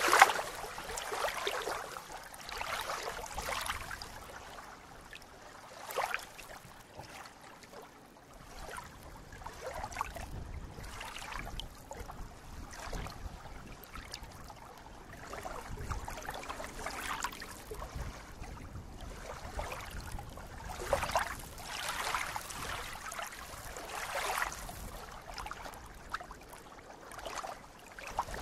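Small waves lapping and rippling along a shallow, reedy shoreline, coming in uneven splashy surges every one to three seconds.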